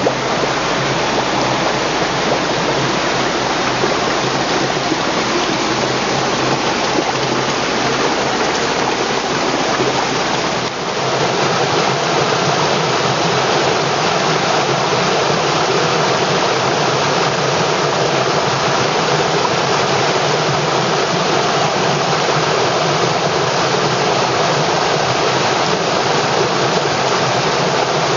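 River water rushing steadily over rocks, a loud, even rush. About eleven seconds in the sound dips briefly, and after that its deepest rumble is weaker.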